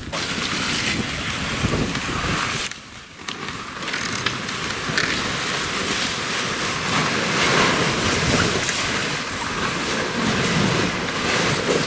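Pickup truck driving down a snowy, overgrown dirt road: a steady rushing noise, with a short drop in level about three seconds in.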